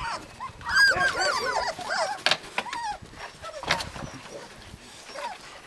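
Husky puppies whining and yipping: a run of high, wavering cries about a second in, then a few short sharp yips, quieter toward the end.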